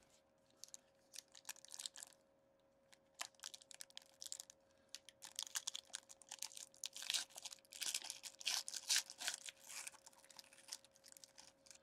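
A foil-wrapped trading card pack being crinkled and torn open by hand. A run of crackles starts sparse and grows dense about halfway through, over a faint steady tone.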